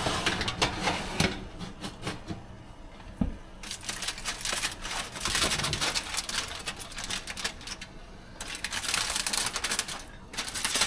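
Aluminium foil crinkling and crackling in uneven bursts as it is peeled back from a baking dish, with a few knocks in the first few seconds.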